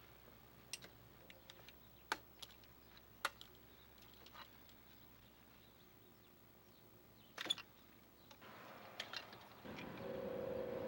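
A few sharp, separate clicks and light taps over a quiet background, with a small cluster of them about seven seconds in. Near the end a hiss rises and a short steady hum comes in.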